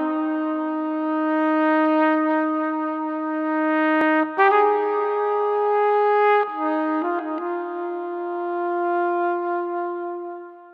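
Solo brass instrument, trumpet-like, playing a slow melody of long held notes: a low note held about four seconds, a higher note for about two, then back to the low note, which fades away near the end.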